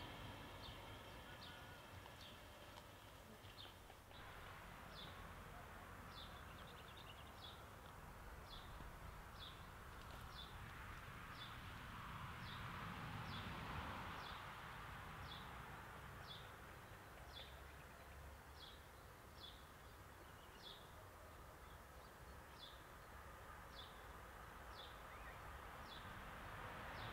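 Quiet outdoor ambience: a small bird repeats a short, high, falling note about one and a half times a second over a faint hiss.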